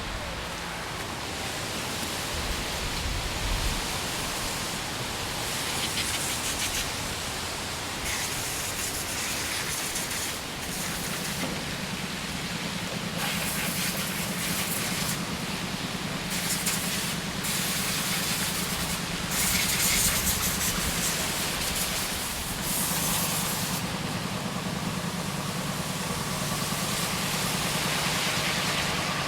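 Outdoor street ambience in wind and rain: a steady hiss that swells and drops in patches, joined by a low engine hum from about eleven seconds in.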